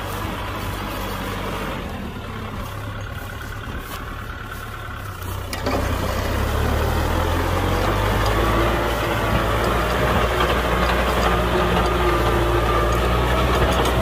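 Kubota M6040 tractor's diesel engine running steadily, growing louder and a little higher in pitch about six seconds in.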